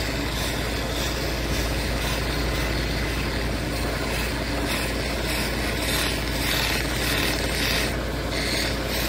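A cabbing machine's motor and wheels running steadily while a dopped stone cabochon is held against a fine pre-polish wheel. The stone rubs on the wheel in repeated uneven strokes as it is worked over the surface.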